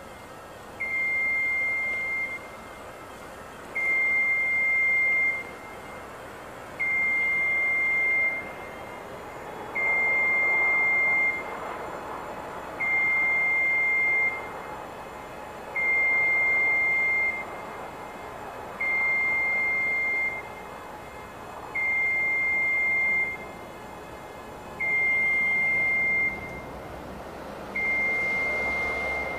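Genie Z-40/23N RJ boom lift's warning alarm beeping while the boom moves: a steady high tone about one and a half seconds long, repeating every three seconds, ten times. A faint hum runs underneath.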